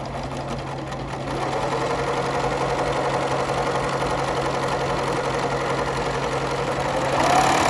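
White Superlock 2000 ATS serger running steadily, stitching a test chain, with a motor hum and a whirring whine. The machine speeds up near the end, the whine rising in pitch and loudness.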